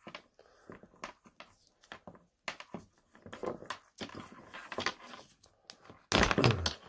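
Black vinyl electrical tape being pulled off the roll and wound around a wire crimp connector, with scattered short crackling peels and handling rustles and a brief louder noise near the end.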